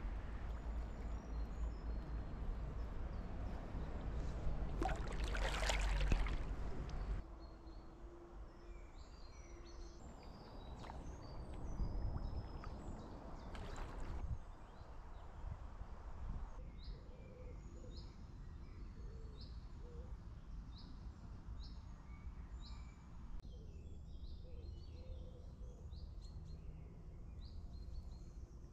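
A kayak paddle dipping and splashing in calm water, with wind rumbling on the microphone and the loudest splash about five to six seconds in. After that, small birds chirp and sing against a faint outdoor background.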